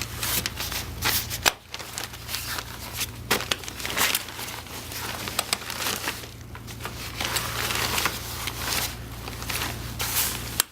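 Portable play yard being folded closed: the fabric-covered frame rustles and crinkles while its plastic and metal rail joints click and knock as they unlock and collapse. A steady low hum runs underneath.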